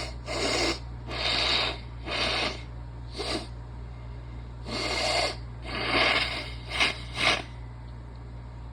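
A woman's sharp, noisy breaths through a congested, sneezy nose: about nine separate bursts, a pause of about a second midway, and two short quick ones near the end.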